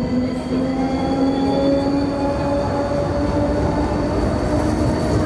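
Electric low-floor tram passing close by: its traction motors whine and slowly rise in pitch as it speeds up, over a steady rumble of wheels on the rails.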